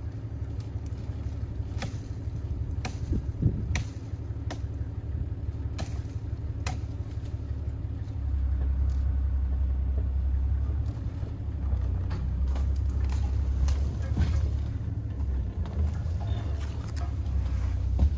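Open safari vehicle's engine running with a low rumble, growing louder about eight seconds in as the vehicle moves off, with scattered light clicks.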